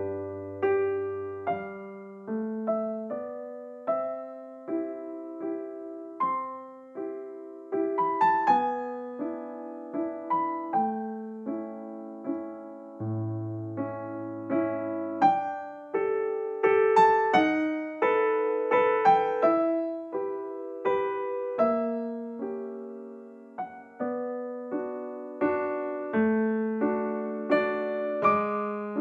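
Slow, gentle solo piano music: single struck notes and soft chords, each ringing out and fading before the next, with occasional low bass notes.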